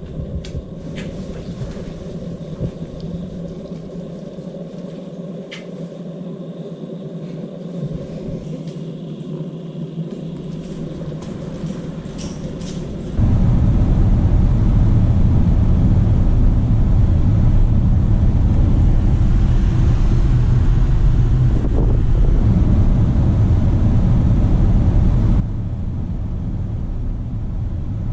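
Steady low rumble of a moving vehicle, with a few light clicks at first. About halfway through it turns suddenly much louder and deeper, then drops back suddenly near the end.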